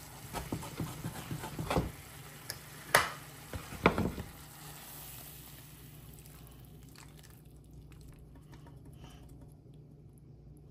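Onion rings sizzling in a sauce in a frying pan, with a utensil scraping and clicking against the pan over the first four seconds and two sharp knocks about three and four seconds in. After that only a fainter sizzle and a few light clicks remain as the pan is tipped.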